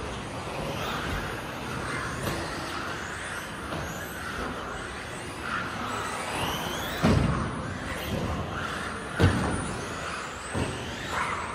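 Electric 1/10 RC off-road buggy running laps on a carpet track: the motor whines up and down in pitch as it accelerates and brakes, over a steady rush of tyre noise. A few sudden thumps come through, the loudest a little past halfway and another about two seconds later.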